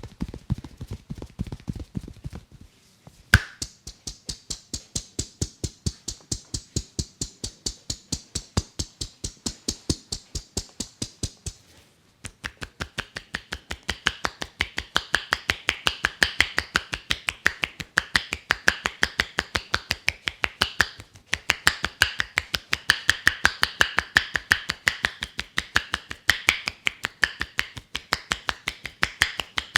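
Rapid, evenly spaced slaps of a barber's hands striking the head in a percussive massage, several strikes a second, with a short break about twelve seconds in. A single sharper snap stands out about three seconds in.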